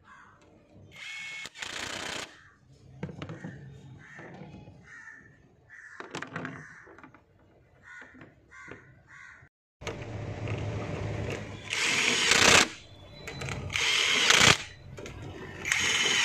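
Impact wrench hammering bolts tight in short bursts, one about a second in and three more in the second half, as the high-voltage cable terminal bolts are tightened. Crows cawing in the background between the bursts.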